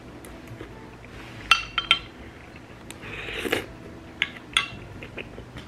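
Chopsticks and dishes clinking: several sharp clinks with a brief ring, the loudest about one and a half seconds in, and a short rustling noise just past the middle.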